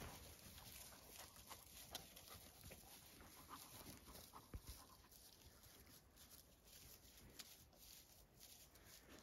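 Near silence: faint outdoor background with a few soft, scattered ticks.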